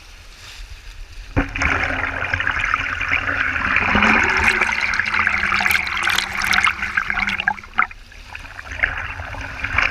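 Rushing, gushing waterfall water very close to the microphone. It starts suddenly about a second and a half in, runs strongly for several seconds, dips briefly near eight seconds and comes back near the end.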